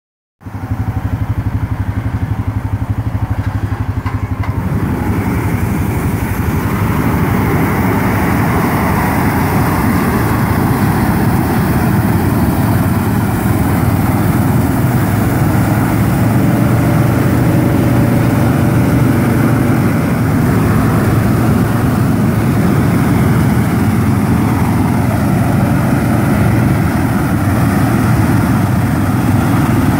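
John Deere tractor's engine running steadily with a low hum under the broad rushing of a bar of propane flame-weeding burners, which fills out about five seconds in.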